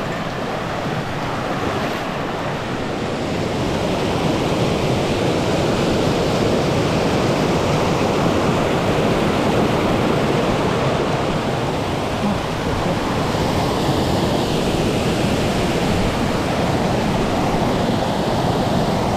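Mountain stream's flowing water rushing steadily, getting a little louder a few seconds in.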